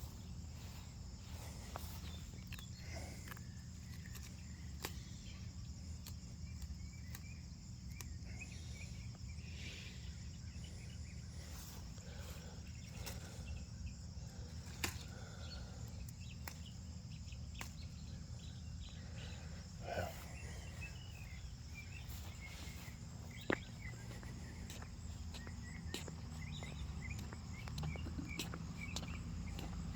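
Outdoor ambience: a steady high drone of insects, likely crickets, over a faint low rumble, with a few brief knocks scattered through, the sharpest about 20 and 23 seconds in.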